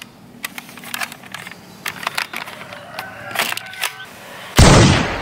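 Scattered plastic clicks and rattles as a toy AK-47 rifle is handled and loaded, then a single loud gunshot sound as it is fired, about four and a half seconds in, fading over about half a second.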